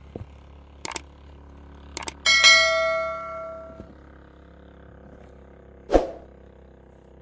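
A few short knocks, then a metal object struck once about two seconds in and ringing with a clear tone for about a second and a half. One more dull knock follows near the end.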